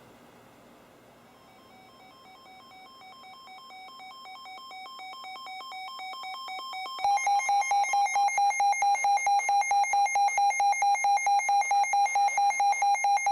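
Weather alert radios sounding their alarms, triggered by a severe thunderstorm warning: rapid electronic beeping that grows steadily louder, then a second, much louder beeping alarm joins about seven seconds in.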